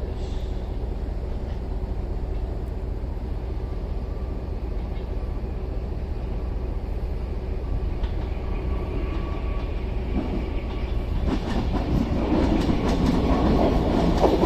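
Avanti West Coast Class 390 Pendolino electric train coming into the station. A low steady rumble grows louder from about ten seconds in, with wheel clicks over the rail joints near the end.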